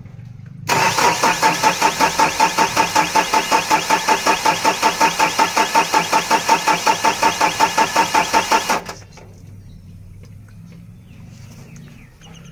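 Starter motor cranking the Mahindra Bolero Pickup's diesel engine for about eight seconds, with an even beat of about five compression pulses a second, then stopping without the engine catching: the engine won't start.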